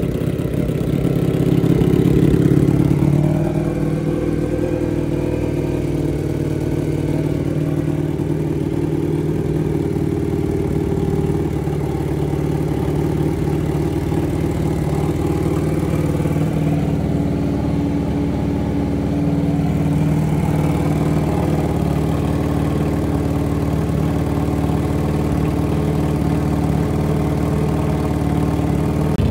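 Ducati Panigale V4's 1103 cc V4 engine idling through an FM Projects full titanium exhaust, just after start-up. For the first few seconds it runs slightly faster and louder, then it settles to a steady idle.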